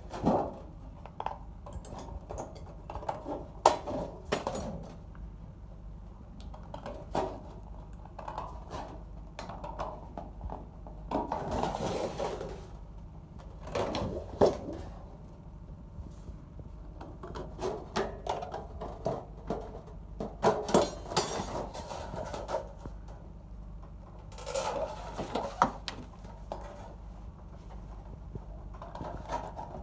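Hand tin snips cutting thin galvanized steel sheet: irregular crunching clicks as the blades close, with a few longer cuts of about a second, and the sheet clattering as it flexes.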